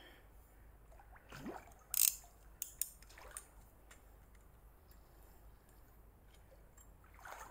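A hooked barbel splashing in the margin as it is played close to the bank, with a loud sharp splash about two seconds in and a couple of short clicks just after, mixed with the handling of a centrepin reel.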